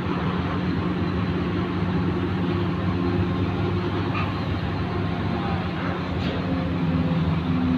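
Ship's engines running with a steady low drone and a constant hiss over it.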